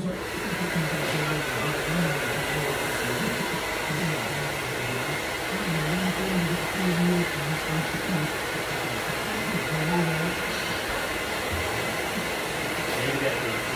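Handheld hair dryer switched on and blowing steadily, a constant rushing whoosh of air over a client's hair.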